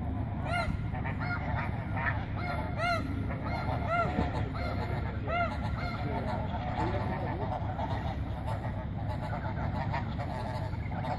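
Geese honking: a series of short, arched calls in the first six seconds or so, then fainter, scattered calls, over a steady low rumble.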